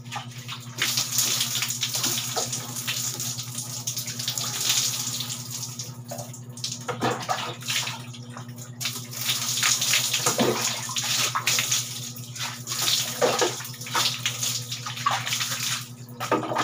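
Water splashing as it is poured from a plastic dipper over a person's head and body and onto a concrete floor during a bucket bath, in several pours with short breaks between them.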